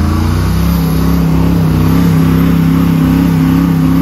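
Truck engine revving up and then held at steady high revs under load, working to pull a vehicle free from deep snow.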